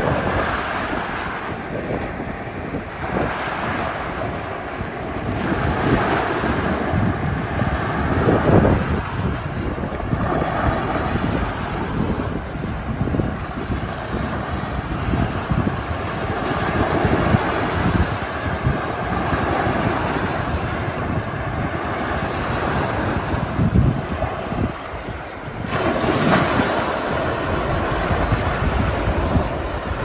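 Wind-driven waves breaking and washing onto the grassy shore of a reservoir, with gusty wind noise on the microphone.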